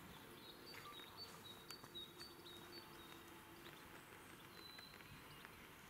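Faint outdoor ambience with scattered short, high bird chirps over a low hiss.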